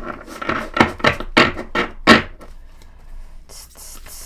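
A tarot deck handled against a table: a quick run of about seven sharp slaps or taps over the first two seconds, the last one the loudest, then a soft rustle of cards near the end.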